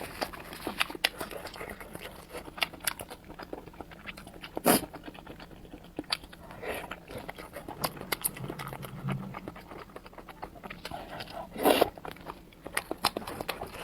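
Close-up eating of spicy glass noodles: wet chewing, slurping and mouth clicks, with two louder sharp sounds, one about five seconds in and one near the end.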